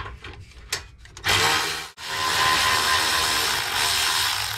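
Cordless electric ratchet running twice to back out a radiator fan shroud bolt: a short burst a little over a second in, then, after a brief pause, a steady run of nearly three seconds. A few light clicks and knocks of handling come before it.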